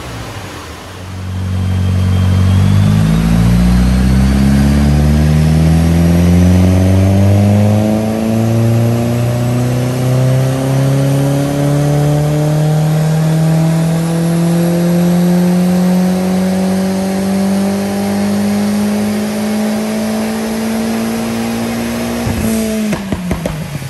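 VW Lupo's 1.8T 20-valve turbocharged four-cylinder engine, with a decat pipe and full exhaust system, on a rolling-road dyno pull. The revs climb slowly and steadily for about twenty seconds. Near the end the throttle is shut and the revs fall away quickly with a little crackle.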